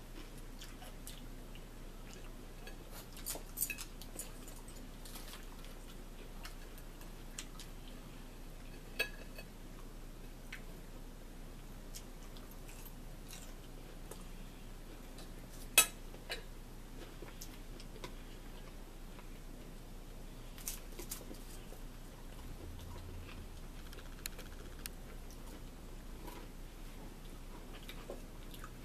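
Metal forks clinking and scraping now and then against a bowl and a plate, in sparse sharp clicks with the loudest about sixteen seconds in, over a low steady hum.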